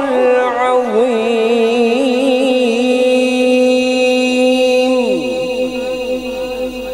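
A man's voice over a PA system chanting the closing 'Sadaq Allahul Azim' of a Quran recitation as one long ornamented note, with heavy echo on it. About five seconds in the voice stops and the echo trails off in sweeping, falling repeats.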